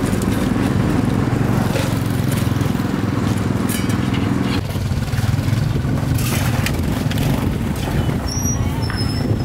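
An engine running steadily amid street noise, its tone shifting about halfway through.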